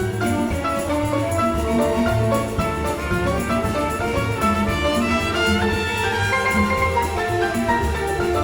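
Solo piano and symphony orchestra playing an upbeat samba, with busy melodic lines over a steady rhythmic bass and percussion.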